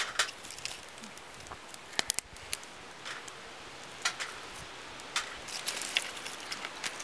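Sharp snaps and crackles of dry twigs being broken by hand and fed into a small wood fire in a titanium cone stove. There is a quick cluster of cracks about two seconds in and a run of small clicks near the end.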